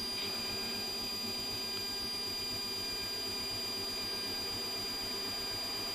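Steady background noise on an F-16 cockpit audio recording during flight: an even hiss with a constant high-pitched whine.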